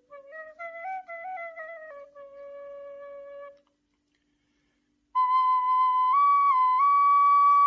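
Nay (end-blown reed flute) playing a slow melody of held notes: a soft, lower phrase that breaks off about halfway, a second and a half of silence, then a louder phrase pitched higher.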